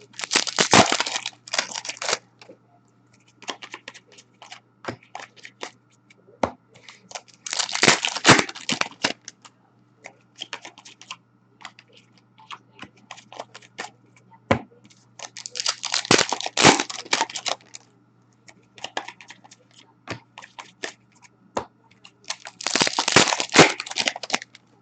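Hockey card packs being torn open, four times roughly seven seconds apart, each a short crackling rip of the foil wrapper, with light clicks and flicks of cards being handled in between.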